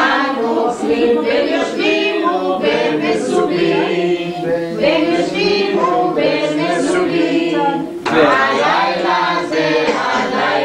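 A group of people singing together at the table, unaccompanied, with a short break about eight seconds in before the singing carries on.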